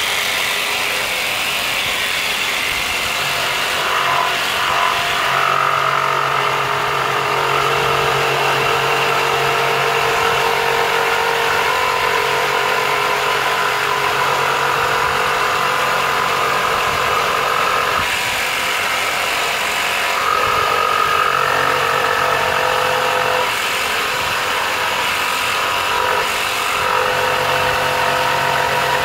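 Electric jigsaw running steadily as it cuts through a wooden board, its motor hum constant with slight shifts in tone as the cut goes on.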